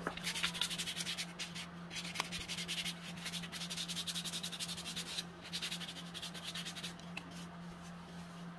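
Sandpaper rubbed in quick back-and-forth strokes over the dry surface of a white clay chicken figurine, smoothing it. The strokes thin out about seven seconds in, over a steady low hum.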